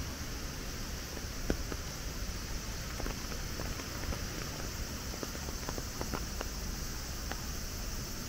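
Steady hiss of falling rain with about a dozen sharp drops tapping close by at irregular intervals.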